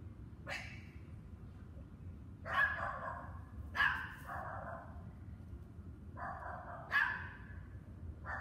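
Dogs barking in scattered bouts of barks a second or two apart, over a steady low background rumble.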